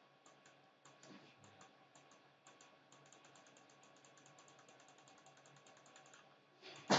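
Faint, evenly spaced computer mouse clicks, a few at first and then quick runs of about five a second, each click stepping a web page heading's font size down by one pixel. A single louder thump comes near the end.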